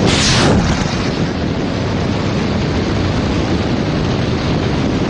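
A missile fired from a helicopter: a sudden rushing blast at the start, then steady heavy rushing noise.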